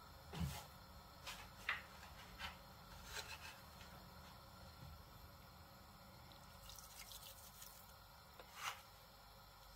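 Pot of chicken soup with diced vegetables simmering: faint, irregular bubbling pops and drips from the broth.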